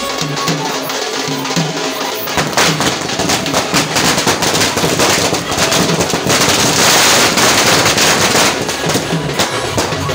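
Firecrackers going off in rapid crackling pops, thickening into a dense, loud hissing crackle from about six to eight and a half seconds, over drum-heavy music.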